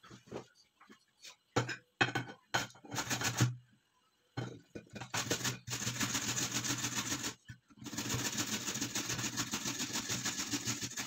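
A carrot being grated on a metal box grater: a few separate rasping strokes at first, then fast, continuous back-and-forth grating from about four seconds in, with a short break midway.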